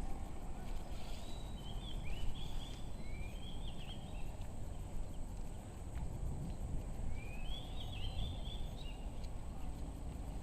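Birds chirping in two short bouts of quick rising and falling calls over a steady low outdoor rumble.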